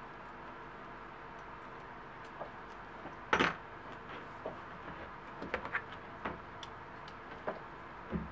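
Scattered small clicks and taps of hands handling leather, a ruler and metal tools on a cutting mat, with one louder knock a little over three seconds in, over a steady low hiss.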